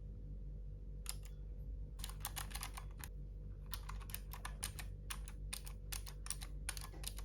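Typing on a Keychron K3 mechanical keyboard with clicky blue switches: a single keystroke about a second in, then quick runs of sharp clicks with a brief pause in the middle. A steady low hum runs underneath.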